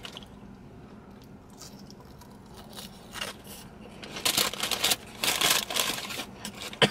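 Close-up crunching and chewing of a crispy battered onion ring, a few crunches in the second half after a quiet start.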